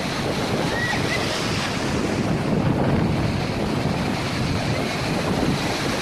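Rough sea waves surging and breaking steadily in a strong current, with wind buffeting the microphone; the wash swells a little toward the middle.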